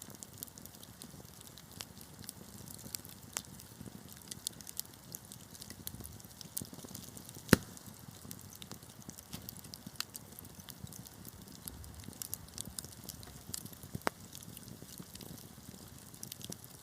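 Wood fire crackling: irregular small snaps and pops over a low steady rustle of burning, with one sharp loud pop about halfway through and another near the end.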